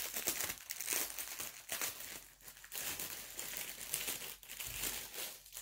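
Plastic packaging crinkling and rustling irregularly as the small bags of diamond painting drills are handled.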